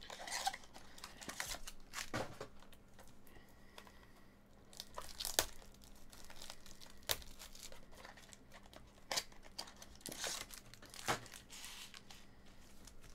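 Foil trading-card pack wrappers crinkling and tearing in the hands, with irregular sharp crackles and a few louder snaps scattered throughout.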